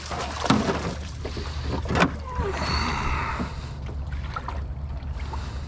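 A dog splashing through shallow water beside a small jon boat, with two sharp knocks against the boat and a rushing of water around the middle, over a steady low hum.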